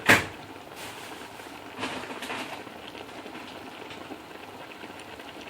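A sharp knock at the very start, then a pot of chicken masala simmering on low heat: a steady hiss with a few faint pops.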